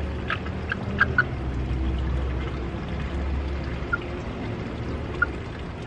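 Low wind rumble on the microphone, with a few short, soft chirps from a young chicken held in arms, several in quick succession near the start and two more later.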